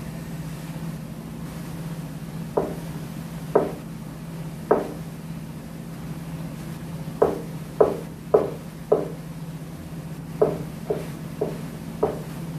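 Kitchen knife chopping a king oyster mushroom on a plastic cutting board: about a dozen sharp knocks, a few at a time with short pauses between, over a steady low hum.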